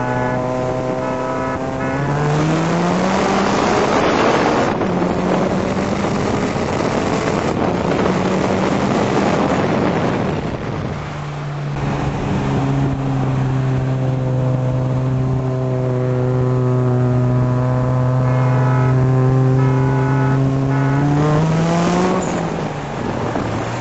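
Escort GT/x and headered Mustang GT racing side by side, heard from inside one of the cars. An engine at full throttle climbs in pitch and drops at gear changes, then holds a steady high drone, and climbs once more near the end. Heavy wind and road rush run underneath.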